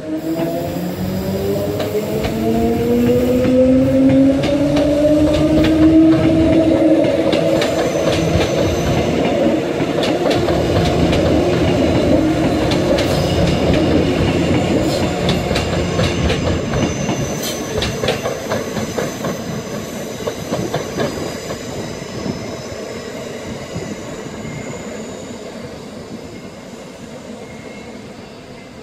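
A Queensland Rail electric suburban train pulling away. Its traction motors whine upward in pitch over the first few seconds as it accelerates, then the wheels clatter and click over the pointwork. A faint high wheel squeal comes in on the curve, and the sound fades as the train draws away.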